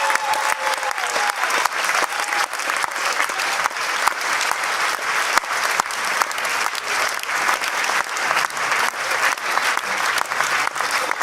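Large audience applauding steadily: many hands clapping at once in a dense, continuous patter.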